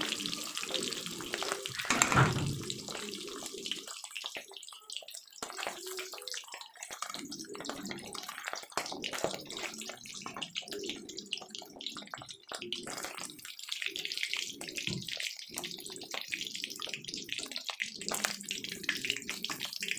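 Paneer cubes frying in hot oil in a kadai: a steady crackling sizzle, with a brief louder knock about two seconds in.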